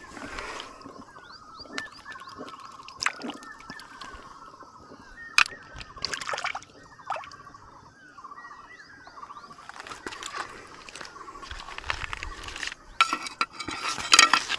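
Water sloshing and stones knocking in a shallow rocky stream, with a few sharp knocks and louder splashing near the end. Birds chirp in the background.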